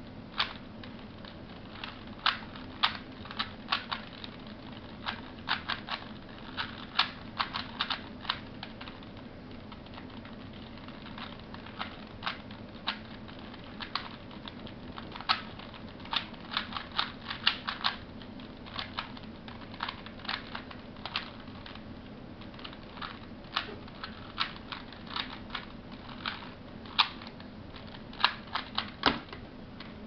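Alpha 4 3x3 speedcube being turned one-handed: quick runs of plastic clicks and clacks as the layers snap round, broken by short pauses, with a few louder clacks near the end. A steady low hum runs underneath.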